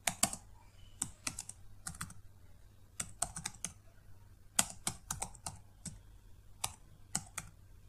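Computer keyboard being typed on: quick runs of keystrokes in irregular bursts with short pauses between words, over a faint steady low hum.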